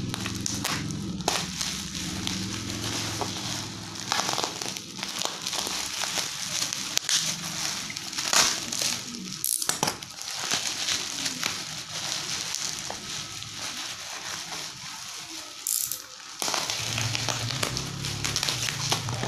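Plastic packaging and packing tape crinkling and crackling as a taped parcel is cut and pulled open by hand, with many irregular sharp crackles.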